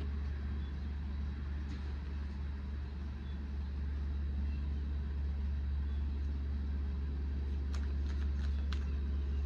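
A steady low rumble, with a few light clicks of tarot cards being handled near the end.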